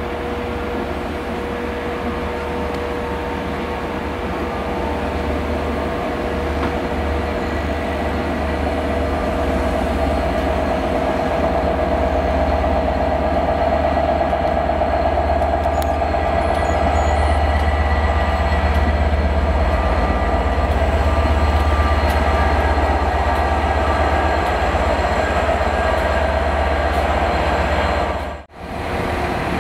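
Long passenger train running slowly past a station platform: a steady rumble with a deep hum and a constant whine, slowly growing louder. It breaks off sharply about a second before the end, and the steady running of a diesel locomotive follows.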